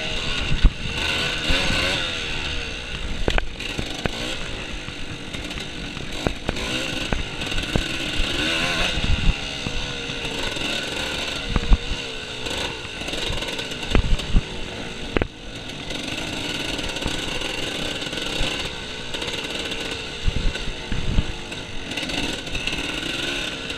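Off-road motorcycle engine revving up and down continuously as the throttle is worked, with a dozen or so sharp knocks and clatters scattered through it.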